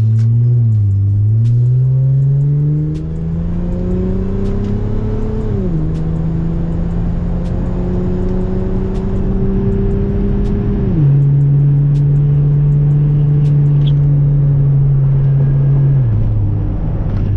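2003 Acura TL Type S V6 engine running after a new coil pack was fitted to cure a misfire. It climbs in pitch for a few seconds, then holds steady speeds, dropping suddenly to a lower pitch three times.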